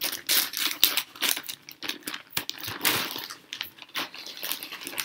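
Plastic courier mailer bag crinkling and crackling as it is cut open with scissors and pulled apart, a quick run of sharp clicks and rustles.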